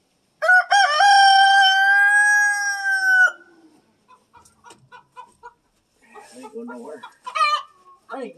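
A rooster crows once, loudly: a couple of short notes lead into one long held note that breaks off after about three seconds.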